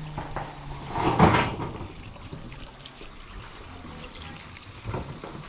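Water from a garden hose splashing over plucked birds in a metal tray as they are rinsed, with a louder spatter about a second in.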